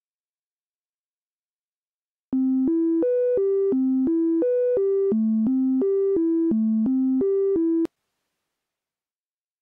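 Serum software synthesizer playing a plain sine-wave patch (Analog_BD_Sin wavetable): a melody of short, even notes, about three a second, stepping up and down in the mid range. It starts about two seconds in and cuts off abruptly near the end.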